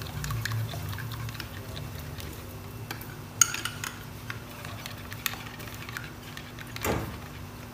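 A metal spoon stirs thick yogurt in a glass bowl, with soft scrapes and small clinks against the glass. One sharper clink comes about three and a half seconds in.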